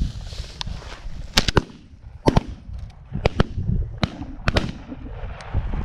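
A volley of shotgun shots fired at a flushed pheasant: about eight or nine sharp bangs over roughly three seconds, several in quick pairs, from more than one gun.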